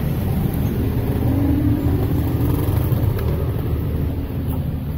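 Steady low rumble of street traffic, with one vehicle's engine hum standing out briefly in the middle.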